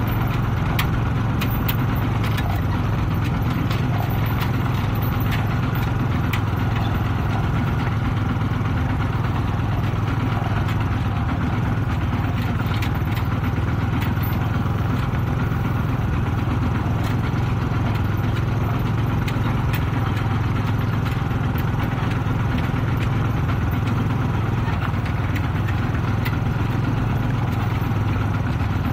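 Kubota RT-120 Plus single-cylinder diesel engine of a two-wheel tractor running steadily while towing a loaded rice trailer, with scattered clicks and rattles from the trailer on the dirt road.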